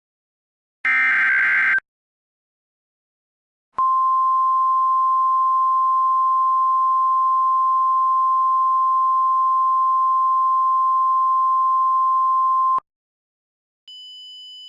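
Emergency Alert System alert: one short, harsh buzzing burst of SAME digital header data about a second in. After a pause comes the steady single-pitch 1050 Hz NOAA Weather Radio warning alarm tone, held for about nine seconds and cutting off abruptly. A faint high beep follows near the end.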